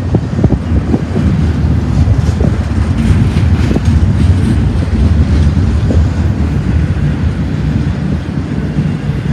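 Double-stack intermodal freight train passing close by: a steady, loud low rumble of steel wheels on rail, with scattered clicks and clanks from the passing well cars.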